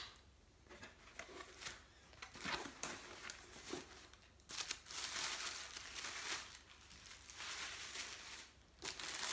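Tissue-paper wrapping and cardboard box flaps rustling and crinkling as a shipping box is unpacked by hand: scattered short rustles at first, then a longer stretch of steady crinkling from about halfway through to near the end.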